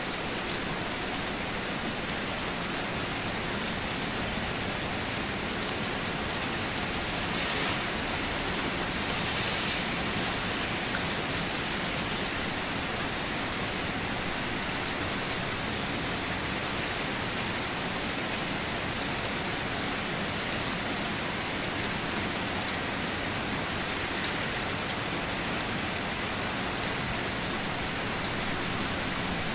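Steady rain falling on standing water, a dense, even patter of drops on the water's surface. It grows slightly heavier for a few seconds around eight to ten seconds in.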